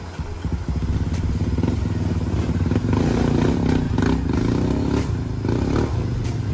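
Enduro dirt bike engine running, coming up loud about half a second in.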